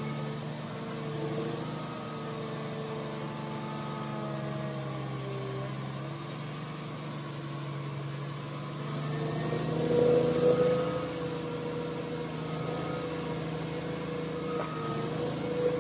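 Heavy machine's engine running steadily, growing louder about ten seconds in, with faint evenly spaced beeps near the end.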